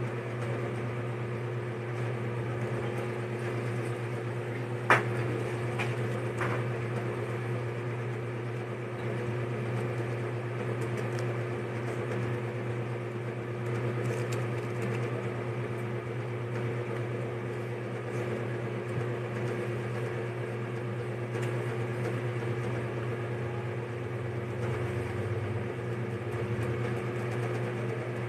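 A steady low mechanical hum, with a sharp click about five seconds in and two fainter clicks soon after.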